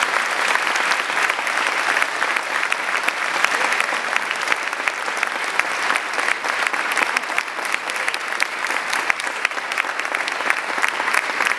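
Audience applauding steadily, many hands clapping together with no let-up.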